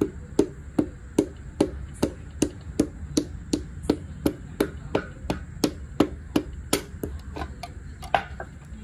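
Rod tapping a piston crown at a steady two to three knocks a second, driving the ringed piston through a ring compressor and down into the cylinder bore of the engine block during engine assembly. Near the end the taps become sparse and irregular.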